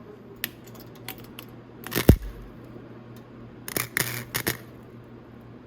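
Short bursts of tack welding on a steel motorcycle muffler: a few brief crackles a little under two seconds apart, the loudest about two seconds in with a dull knock, then a quick cluster around four seconds, over a steady low hum.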